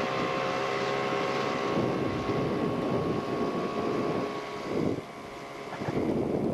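Small boat's gasoline outboard motor running steadily under way, with water and wind noise; the sound drops briefly about five seconds in, then comes back up.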